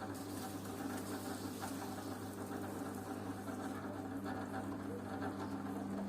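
Washing machine running a wash cycle with a drum full of suds: a steady motor hum under the swish and patter of the tumbling wash.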